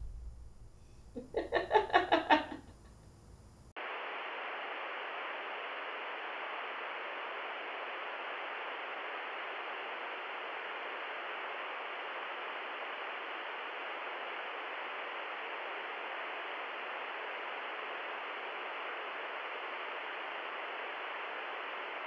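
A short pulsing, stuttering sound about a second in, then, from about four seconds in, a steady television-static hiss.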